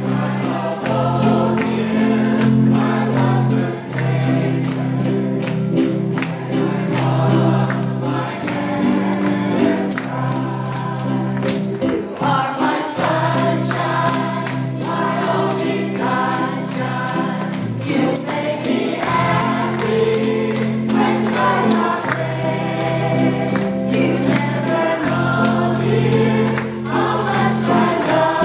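A mixed choir of men's and women's voices singing a song together, one voice amplified through a microphone, over ukulele accompaniment and a steady percussive rhythm from a washboard.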